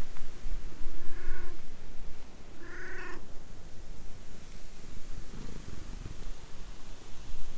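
Ginger stray cat meowing twice, two short calls about a second and a half apart, the second louder.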